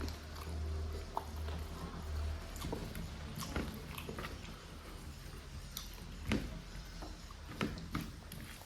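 Close-miked eating sounds: chewing with wet mouth clicks and smacks scattered irregularly, over a low hum that fades after about two seconds.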